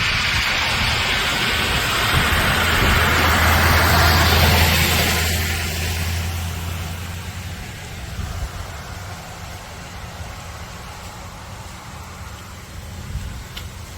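A motor vehicle passing by: its engine hum and road noise grow louder over the first few seconds, peak about four seconds in, then fade away.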